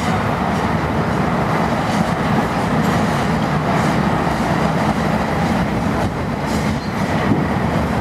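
Canadian Pacific Expressway piggyback train rolling past, its flatcars loaded with highway trailers. The wheels make a steady rumble on the rails, with a clack every second or so.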